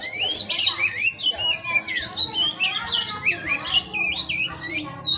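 Oriental magpie-robin (kacer) singing: a fast, unbroken stream of varied whistles, rising and falling slurs and harsh squawky notes.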